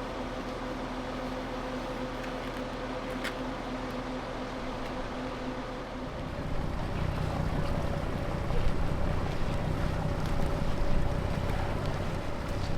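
Motorboat engine running steadily, with water and wind noise. About six seconds in, the sound turns louder and rougher.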